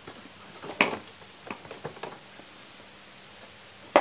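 A few light clicks and knocks from hands fitting hoses and connectors back onto a scooter's throttle body. The sharpest comes about a second in, a few smaller ones follow, and a last sharp click falls at the very end.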